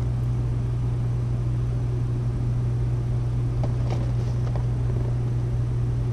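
A steady low machine hum that does not change, with a couple of faint clicks of cardboard boxes being handled about four seconds in.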